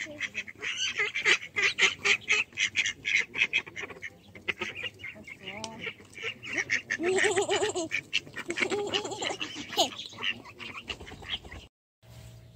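Mallards quacking in quick, rapid runs as they feed, with a few longer pitched calls mixed in. It cuts off suddenly near the end.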